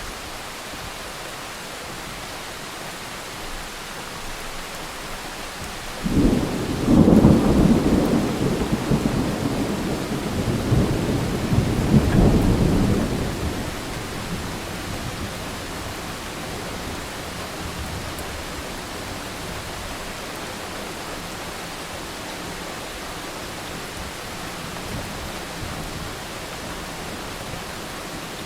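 Steady rain with a roll of thunder. The thunder breaks suddenly about six seconds in, rumbles for several seconds, swells again, then dies away under the rain.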